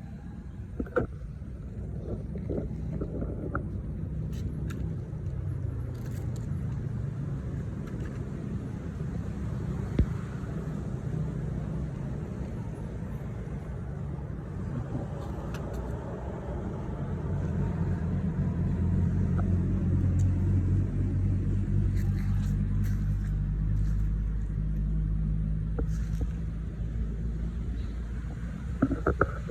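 Excavator's diesel engine running steadily, getting louder for several seconds in the middle and then easing back, with a few brief knocks.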